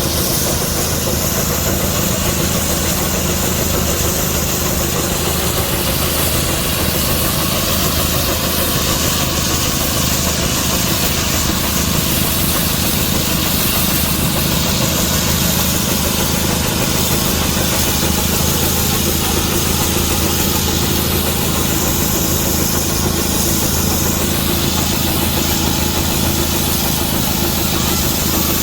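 Antique steam traction engine running steadily at an even pace, a continuous low mechanical drone that holds the same level throughout.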